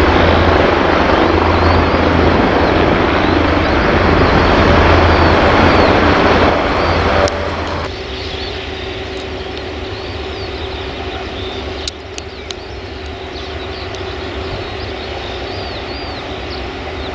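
De Havilland Canada Dash 8 twin turboprop climbing out after takeoff: loud engine and propeller noise with a heavy low drone. About seven seconds in, this cuts to a quieter, steady engine hum with a held tone from a Saab 340 turboprop taxiing onto the runway.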